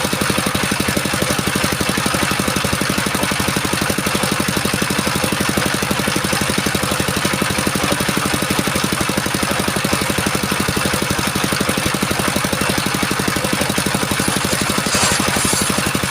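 Stationary single-cylinder diesel engine running steadily while driving a circular-blade sawmill, its firing pulses even and rapid. A brighter hiss joins about a second before the end.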